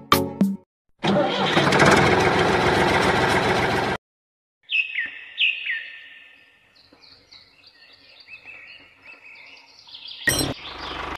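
A loud, rough, even noise for about three seconds that cuts off suddenly, then, after a short gap, a bird chirping in repeated falling chirps that grow fainter, with a brief loud burst near the end.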